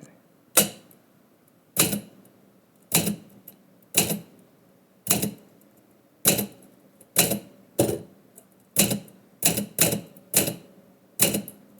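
Typewriter keys struck one at a time, slowly and deliberately, about once a second, with a few strikes coming closer together near the end.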